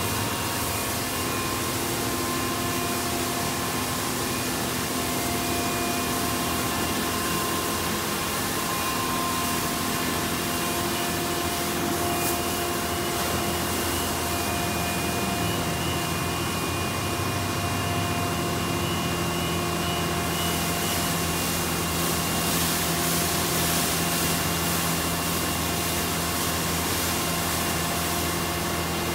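D&S Quicksilver touchless car wash gantry running its high-pressure spray over a vehicle: a steady hiss of water spray over the hum of its pumps and motors. About halfway through, the low hum changes pitch.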